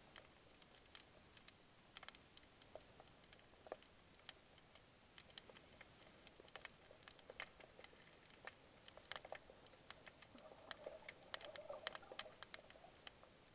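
Faint underwater ambience: scattered sharp clicks and crackles, growing denser toward the end, with a brief low murmur about eleven seconds in.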